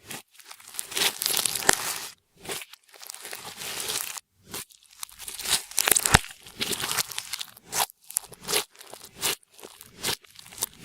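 Clear slime being worked by hand, with makeup and glitter being mixed in. It makes irregular bursts of sticky, crackly noise separated by brief silent gaps.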